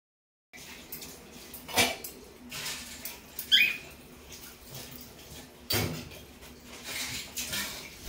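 Cockatiels moving about on a metal wire cage, their claws and beaks clinking and knocking on the bars, with light rustling between the knocks. A short chirp comes about three and a half seconds in.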